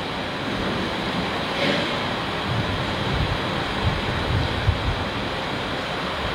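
Steady rushing background noise, like wind or fans, with a few soft low thumps.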